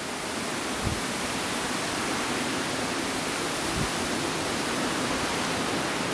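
Steady rushing wind of a snowstorm, an even hiss without let-up, with two brief low bumps.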